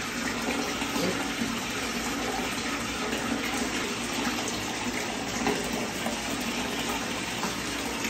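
Bathtub filling from the tap: water running steadily into the water already in the tub.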